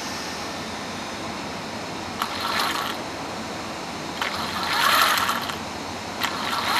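DEERC 14210 1/14-scale RC car's motor and gear drivetrain whirring in three short bursts of throttle, each a little longer and louder than the last.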